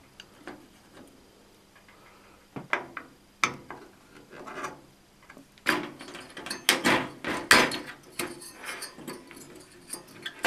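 Plastic clicks and knocks as a CPU heatsink's push-pin fasteners are turned with a screwdriver and the heatsink is worked loose from the motherboard. A few scattered clicks at first, then a dense clatter of sharp clicks for a couple of seconds just past the middle.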